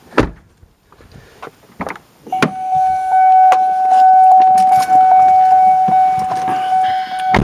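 A thump just after the start and a few clicks, then from about two seconds in a car's electronic warning chime sounding a steady tone that pulses about two and a half times a second. This is typical of the door-open or key-in-ignition chime of a 1999 Cadillac STS with its door standing open.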